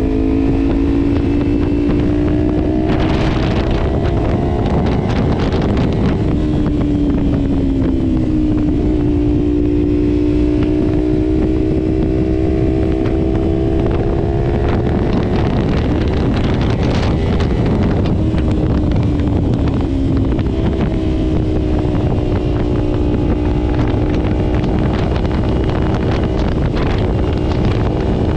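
Kawasaki Ninja 300's parallel-twin engine, breathing through a Leovince exhaust with the baffle removed, running under way. Its pitch rises and falls several times as the revs change. Steady wind rumble buffets the camera microphone underneath.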